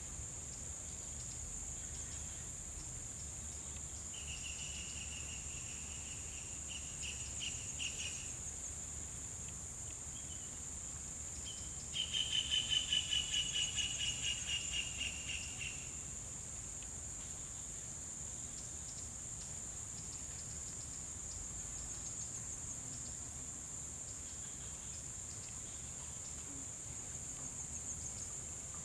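Steady high-pitched insect chorus. About four seconds in comes a louder pulsed trill, and about twelve seconds in a stronger one that falls slightly in pitch over some four seconds.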